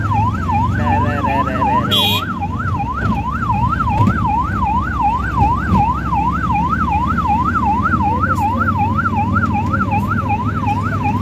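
Electronic siren of a police vehicle in fast yelp mode, its pitch sweeping up and down about three times a second over the low rumble of road traffic.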